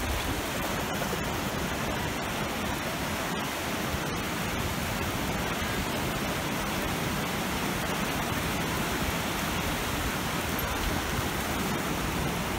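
Steady rush of ocean surf breaking and washing up a sandy beach.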